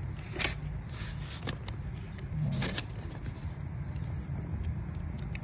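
A few sharp snaps and clicks as cable ties are cut and wires are pulled free from an electric wheelchair's joystick wiring, over a steady low rumble.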